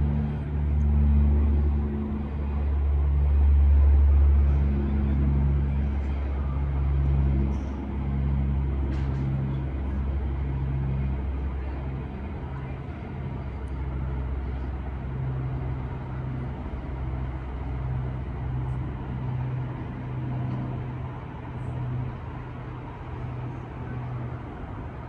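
Antonov An-12's four Ivchenko AI-20 turboprop engines droning, a deep rumble with a wavering propeller hum that slowly fades as the aircraft moves away.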